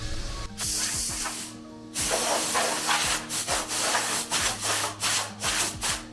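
Back-and-forth rubbing strokes, like hand sanding or sawing: a short burst about half a second in, then a run of quick strokes over the last four seconds, with background music.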